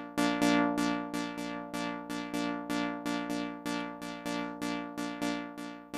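Synth lead sound (Maschine's Electro Leader preset) playing back a recorded pattern on its own: short, quickly fading notes, about four a second, mostly on one pitch. The notes differ in loudness because the velocity recorded for each note sets its volume.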